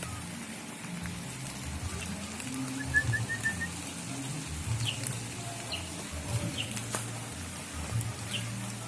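Small wild bird calling: a quick run of about five high notes about three seconds in, then a few short, falling chirps, over a steady low background noise with scattered faint clicks.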